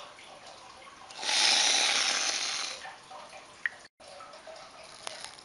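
Whipped cream sprayed from an aerosol can: a steady hiss about a second and a half long, starting about a second in.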